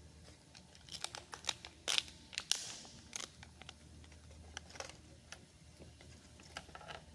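Small sharp plastic clicks and brief crinkling from handling an opened Toyota Prius key fob and its CR2032 coin battery, busiest about one to three seconds in, with scattered clicks after.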